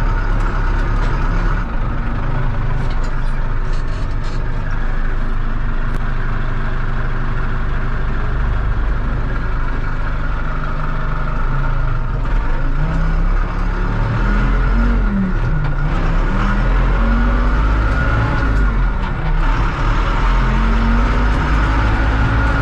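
Chinese tractor engine running steadily while driving, with a constant drone and a steady higher gear whine. About midway, a low pitched tone rises and falls several times. This is a tractor whose rear axle is loud, the one fault its owner reports.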